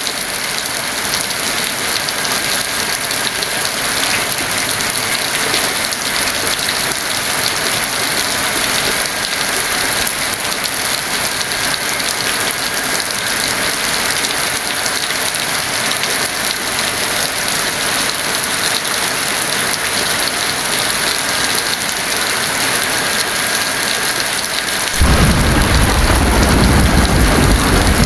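Heavy rain falling steadily as an even hiss; near the end thunder breaks in suddenly with a loud low rumble that keeps rolling under the rain.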